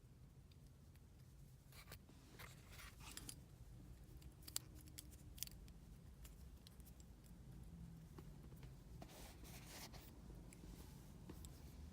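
Faint handling of a metal fidget spinner: a few light clicks and soft rustles, with two sharper ticks about halfway through, over a low steady room hum.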